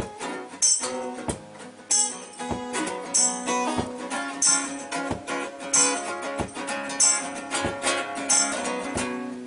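Acoustic guitar strummed through an instrumental break, over a steady beat of low thumps alternating with bright high hits.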